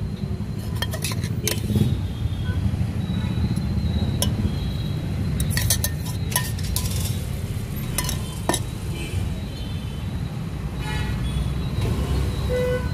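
Scattered clinks of a stainless-steel spoon against a steel mug as sandwich filling is spooned out, over a steady low rumble of street traffic.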